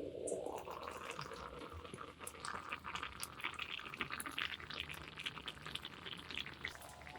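Liquid poured into a cooking pan in the first second, then the pan's contents bubbling at a simmer with many small pops.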